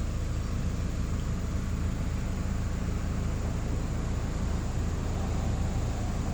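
1995 Geo Prizm's 1.8-litre inline-four engine running steadily, a low even hum with no stumble or stall.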